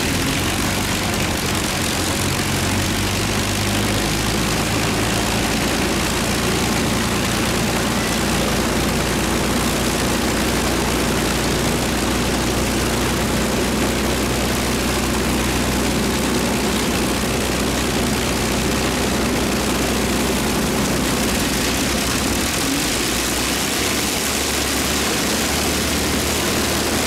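A heavy engine idling steadily, an even low hum with no change in speed.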